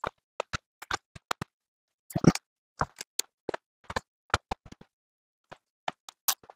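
Scattered plastic clicks and knocks from a truck's glovebox assembly being pushed and snapped back into the dashboard, with a heavier knock a little over two seconds in.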